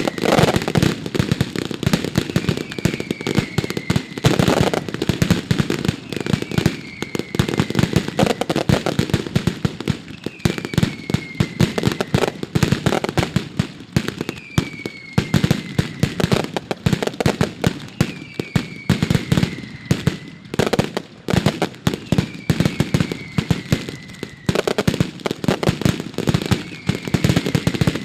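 Mascletà: a dense, unbroken rattle of firecrackers going off in rapid succession, with a short falling whistle that comes back about every three seconds.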